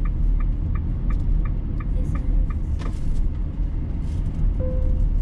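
A car's road and engine noise heard inside the cabin while driving. The turn signal ticks steadily, about three times a second, for the first couple of seconds. Near the end the car navigation system gives a short chime before its spoken announcement.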